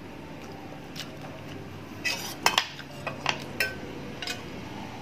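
A spoon clinking and scraping against a stainless steel cooking pot while scooping broth from it. The sharp clinks come in a cluster from about two seconds in to just past four seconds.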